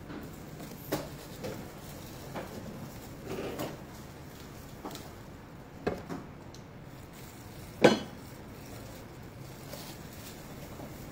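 Marker pen writing on a clear plastic food container lid, with scattered light taps and knocks of the plastic; the loudest knock comes about eight seconds in.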